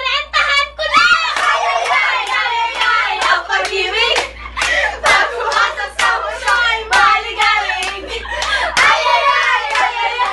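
A group of young women and a boy clapping their hands over and over while singing, shrieking and laughing together.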